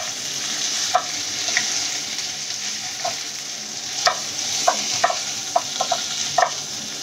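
Potato cubes and spices frying in oil in a non-stick kadai, a steady sizzle, while a silicone spatula stirs them, giving irregular short clacks and scrapes against the pan, more frequent in the second half.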